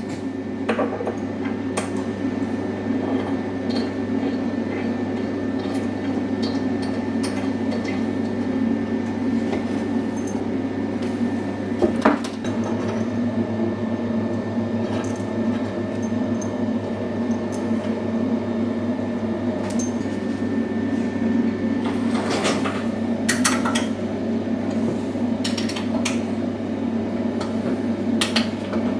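CNC loom running: a steady machine hum with scattered sharp metallic clicks and clinks as it works stainless steel wire, the loudest click about twelve seconds in.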